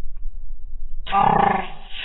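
A steady low rumble, then about a second in a loud, harsh, pitched vocal cry that carries on, its pitch stepping down.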